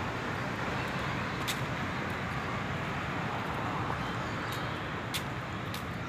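Steady roar of road traffic, with a few faint clicks over it.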